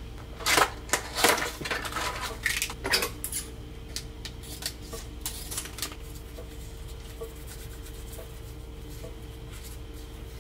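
Wet tissue rubbing and scrubbing over a rubber dog toy, with rustling and handling clatter loudest in the first few seconds, then fainter scattered clicks. A faint steady hum runs underneath.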